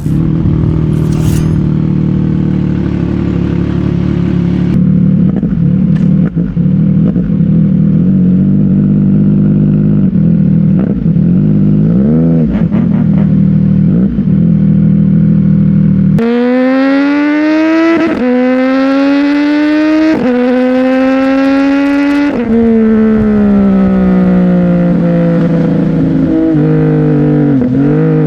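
CFMOTO 675NK three-cylinder engine through a titanium aftermarket exhaust, running steadily for about half the time. It then accelerates hard, the pitch climbing and dropping at quick upshifts about every two seconds. After that it falls away as the throttle closes, with a brief blip near the end.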